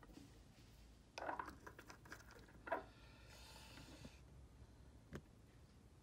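Near silence with faint handling sounds from a bottle of head cement and its brush-in-cap applicator: a few soft scrapes and a short hiss, then one light click near the end.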